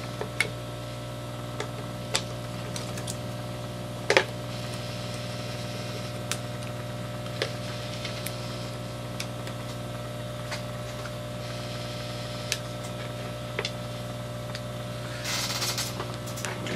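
A steady electrical hum from the repair bench, with scattered small clicks and taps from handling, the loudest about four seconds in, and a brief rustle near the end.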